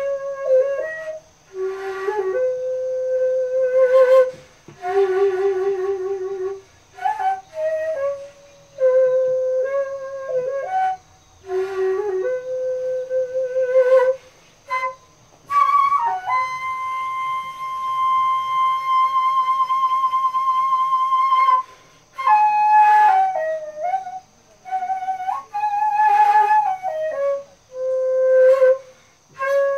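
Daegeum, the Korean large transverse bamboo flute, played solo in slow phrases of held notes, several with a wide vibrato, parted by short breaths. About halfway through, one high note is held steady for about five seconds.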